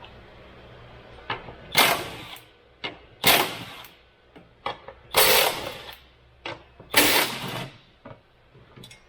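Impact wrench with a 12 mm socket run in four short bursts, loosening the exhaust support bolts, with small metallic clicks between the bursts.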